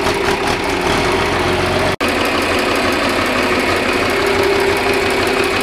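John Deere 4020 tractor's six-cylinder engine idling steadily with an even running pulse. The sound cuts out for an instant about two seconds in.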